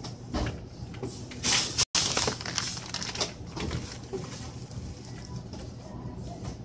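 Checkout-lane background noise with a steady low hum, scattered clicks and rustling. About a second and a half in comes a loud rustle of the phone rubbing against clothing, and the sound cuts out for an instant just after.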